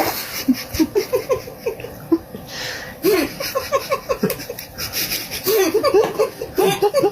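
A person laughing in strings of short, rapid bursts, growing louder and more continuous in the last second or so.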